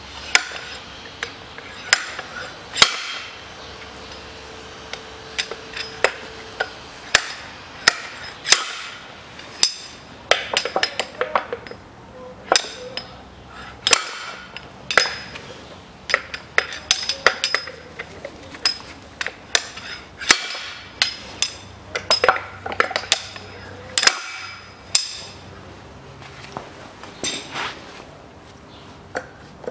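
Slide hammer striking the rear axle bearing and its retainer on a 1985 Isuzu Trooper axle shaft, to knock the worn bearing off. Sharp metal-on-metal blows with a short ring come in irregular clusters of one to three a second, with brief pauses, and thin out near the end.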